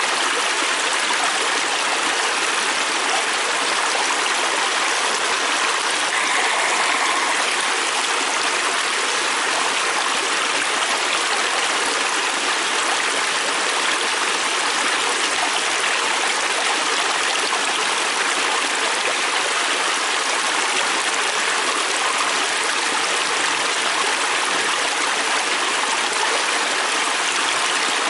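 Fast-flowing river stream rushing and splashing over rocks, a steady, even rush of water.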